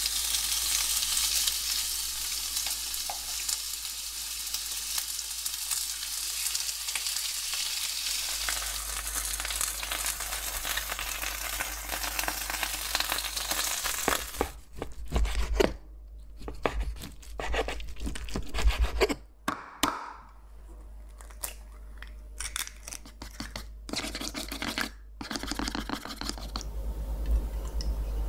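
Chicken thigh pieces sizzling steadily on a hot cast-iron grill pan. About halfway through the sizzle gives way to a broken series of short knocks and scrapes.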